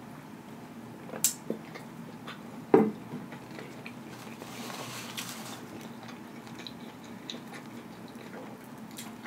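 Close-miked table handling sounds: a sharp click about a second in, then a louder knock just before three seconds in as a drinking tumbler is set down on the table. Later come a brief soft rustle and light ticks of a metal fork working food on a plate.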